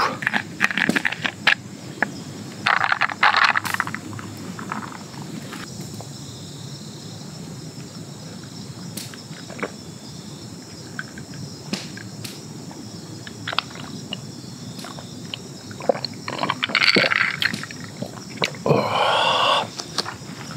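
Insects chirping steadily in the woods, with scattered clicks and a few louder noisy bursts, each about a second long, near the start and again near the end.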